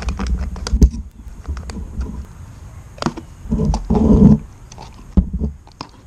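Hands pulling and twisting the rubber boot on the outer joint of a removed CV axle. The boot rubs and squeaks with many irregular sharp clicks, and there is a louder scraping rub about three and a half seconds in.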